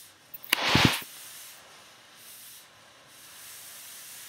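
Oxy-fuel cutting torch hissing steadily as it cuts through an expanded steel mesh grate. A loud, short burst of noise comes about half a second in.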